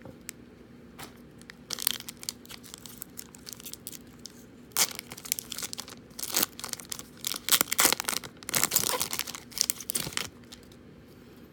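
Foil wrapper of a trading card pack being torn open and crinkled by hand, in irregular crackling bursts, with the busiest crinkling in the second half.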